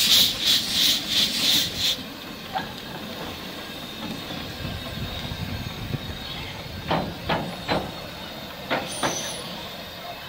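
Small narrow-gauge steam locomotive working, with rhythmic chuffs and steam hissing from the cylinders, about two to three a second, which stop after about two seconds. After that, a low steady background with a few short metallic clanks in quick succession, as the locomotive is swung round on a turntable.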